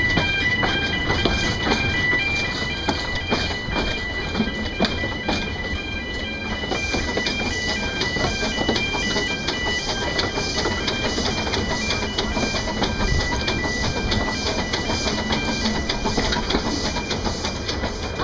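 Narrow-gauge steam train running along the track, with a steady rumble and regular clicks and knocks from the wheels and running gear. For about the first six seconds a high, repeating chime tune plays over it, then stops.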